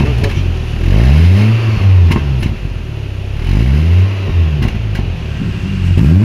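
Hummer H3's engine revved in short blips through an aftermarket exhaust muffler held in place for a sound test. The revs rise and fall about twice, with another blip starting near the end, and a few short cracks come as the revs drop.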